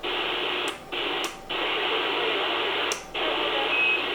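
Static hiss from a CB radio's receiver, playing through the speaker, cutting out briefly a few times. A short high beep sounds near the end.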